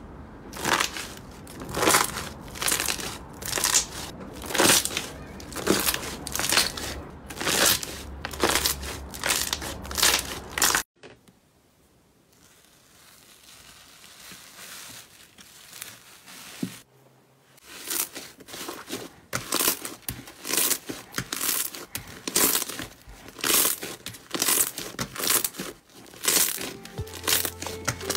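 Slime being squeezed and pressed by hand, giving a rhythmic series of crisp, squelching pops about two a second as trapped air bursts out. They stop for a few quieter seconds in the middle, then resume.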